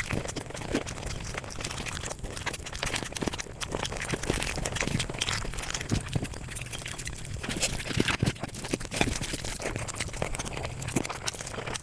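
Close-miked eating sounds sped up five times: a dense, continuous run of quick chewing and mouth clicks.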